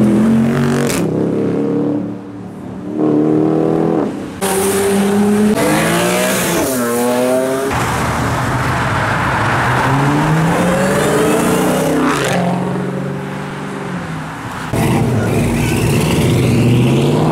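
Several cars, among them a Jeep Grand Cherokee, a modern Dodge Charger and a 1968 Dodge Charger, pulling away one after another and accelerating hard. Each engine revs up in pitch, drops at a gear change and climbs again.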